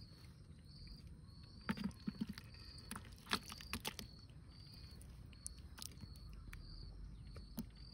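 Faint scrapes and knocks of a utensil working chicken curry out of a pressure-cooker pot onto a plastic plate, in a cluster of clicks from about two to four seconds in and a few more after. A short high chirp repeats steadily in the background.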